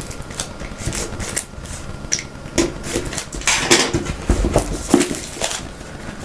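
Cardboard and plastic packaging of a smartphone box being handled and opened: irregular rustling, light taps and clicks.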